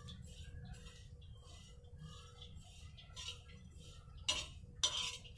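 Metal spatula scraping and ticking against a flat tawa while fennel and fenugreek seeds are stirred during dry-roasting. There are a couple of louder scrapes near the end, over a low steady hum.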